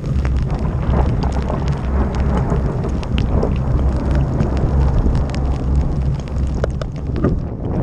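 Wind buffeting the microphone of a camera on a moving bicycle in the rain, a heavy low rumble, with raindrops ticking sharply and irregularly against the camera and a hiss of rain and wet road.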